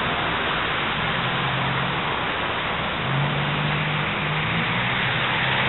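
Steady street traffic noise: an even, loud hiss with a low vehicle engine hum coming in from about a second in.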